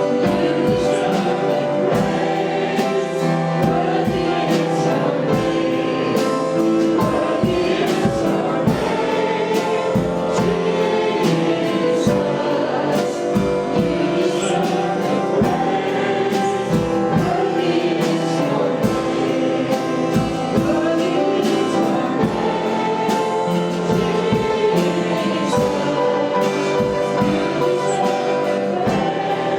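Gospel-style worship music: several voices singing together over instrumental accompaniment, with long held notes.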